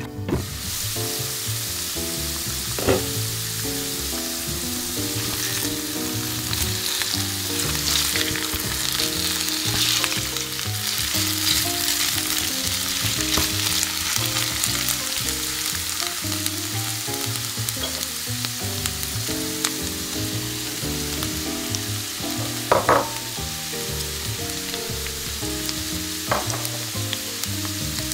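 Potato sticks frying in olive oil in an open frying pan: a steady loud sizzle that starts abruptly as the lid comes off. A spatula scrapes and knocks against the pan a few times as the potatoes are turned.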